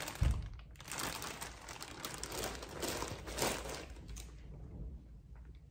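Clear plastic bag crinkling and rustling as it is handled and laid down, starting with a soft thump and dying away about four and a half seconds in.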